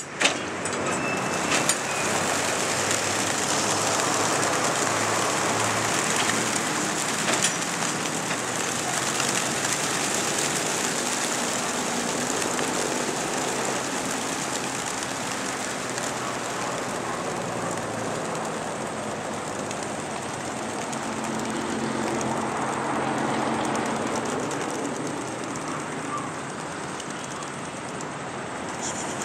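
Wings of a large flock of racing pigeons flapping as they pour out of a transport truck's crates and take off together: a dense, steady whirring rush that thins slightly towards the end. A few sharp clicks sound near the start.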